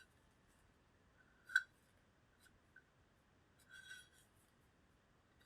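Quiet handling of small gun parts and tools: one sharp click about a second and a half in, a faint tick, then a brief soft rub near four seconds.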